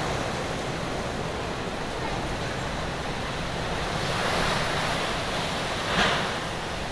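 Very strong cyclone wind with rain: a steady rush of noise that swells about four seconds in, with a brief louder burst about six seconds in.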